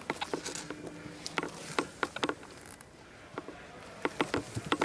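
Footsteps: an irregular run of sharp clicks and scuffs of a player's boots moving across a hard floor.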